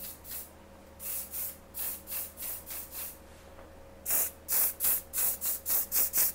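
Aerosol can of Karina fixing hairspray sprayed in short quick puffs, about three a second, with the hair sprayed from a distance. There are two runs of puffs: a fainter one from about a second in, and a louder one from about four seconds in.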